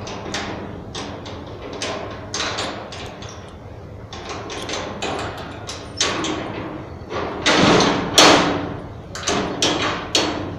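Padlock and keys clinking and rattling against a steel rebar grille gate as the lock is opened and taken off, a run of sharp metal clicks and clanks. About eight seconds in comes the loudest sound, a longer grating metal scrape ending in a clank as the gate's bar is worked.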